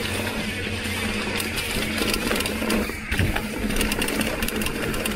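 Industry Nine rear hub's freehub buzzing as the mountain bike coasts: a rapid, fairly steady ratcheting buzz from the pawls clicking over the many engagement points.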